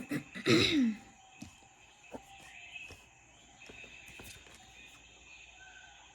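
Jungle-sounds ambience recording with steady high insect chirring. About half a second in comes a brief voice-like sound that falls in pitch, and a few faint clicks follow.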